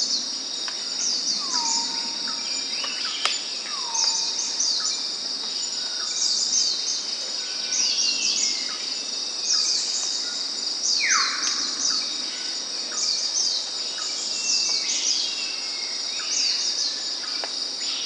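A steady high insect drone with birds chirping over it, a natural outdoor chorus. Two falling whistles come in the first four seconds, and a short rising rasp comes about eleven seconds in.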